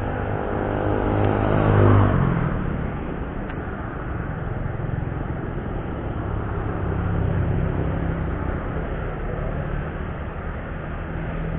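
Road traffic passing close by: a motor vehicle's engine note builds to its loudest about two seconds in and fades, followed by a steady low engine hum from further traffic.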